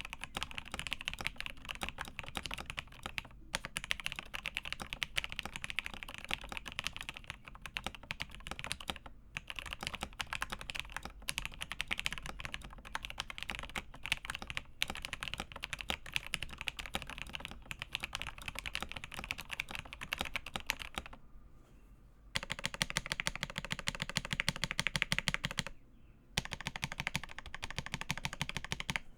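Fast typing on an LCK75 mechanical keyboard with Marshmallow switches and PBT keycaps in an acrylic case: a dense, continuous clatter of keystrokes that pauses briefly a few times, longest about three-quarters of the way through.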